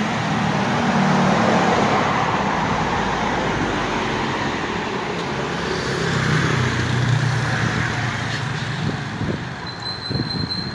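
Passing road traffic on a city street: cars, a small utility van and motorcycles driving by, engine and tyre noise swelling as vehicles pass close, about a second in and again around six seconds in.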